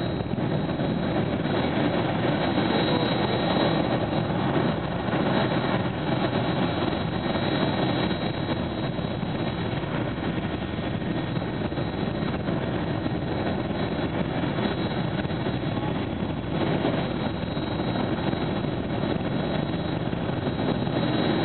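Jet engine of a jet-powered show car running steadily, its exhaust blasting a wrecked car into flames; a continuous, even noise with no breaks.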